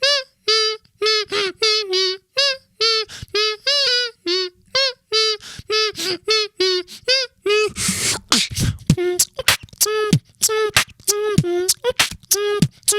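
Beatboxer playing a melody with the siren sound: a string of short, warbling falsetto siren notes. From about eight seconds in, sharp kick-and-snare-style beatbox hits join in as a basic rhythm under the siren notes.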